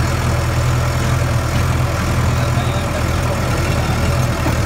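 An engine running steadily at low revs, a constant low hum.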